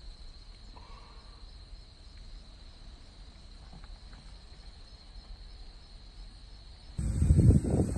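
Faint, steady high-pitched insect trill, such as crickets in the grass. About seven seconds in, loud wind noise on the microphone cuts in suddenly.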